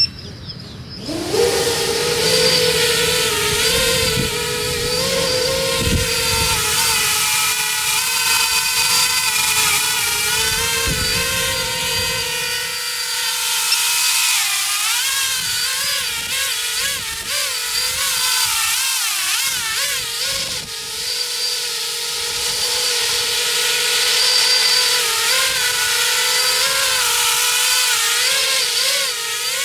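FPV cinelifter drone's brushless motors and propellers spinning up about a second in to a steady high-pitched whine as it lifts off and hovers during a hover test. The pitch wavers up and down through the middle and again near the end as the throttle is worked.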